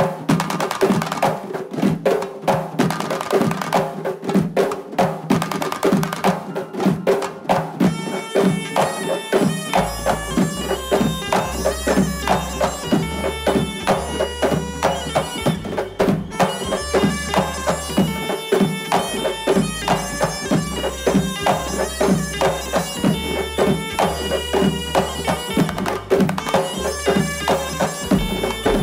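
Tunisian folk ensemble playing live: frame drums beat a fast, steady rhythm, a wind instrument's melody comes in about eight seconds in, and bass joins soon after.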